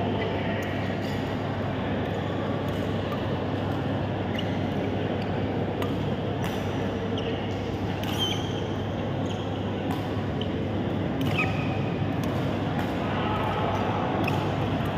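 Badminton play on an indoor court: sharp racket hits on the shuttlecock at irregular intervals and a few brief shoe squeaks on the court floor, over a steady hall hum with faint background chatter.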